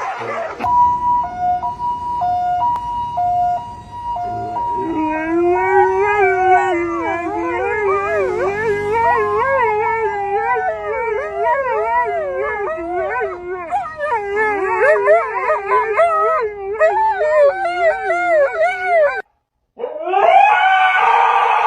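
A two-tone hi-lo siren sounds for a few seconds, then a dog howls along with it: long wavering howls that rise and fall and overlap the wail. After a brief cut near the end the howling starts again, louder.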